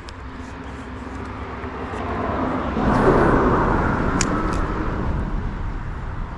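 A vehicle passing by, swelling to its loudest about three seconds in and then fading away, with two sharp clicks about four seconds in.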